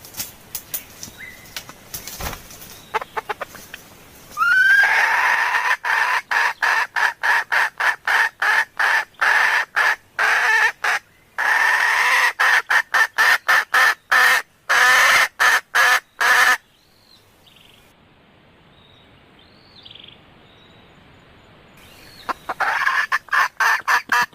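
Female red junglefowl calling: a fast run of loud clucks, about three a second, lasting some twelve seconds. A lull follows with a few faint distant bird calls, and the clucking starts again near the end. It is the hen's call that draws in males.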